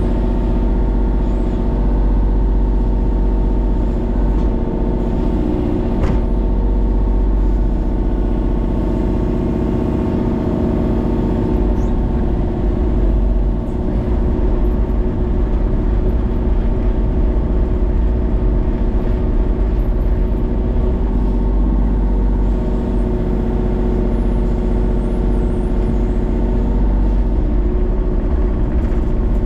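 Kubota mini excavator's diesel engine running steadily under load as the boom and bucket dig, heard from the operator's seat, with one sharp knock about six seconds in.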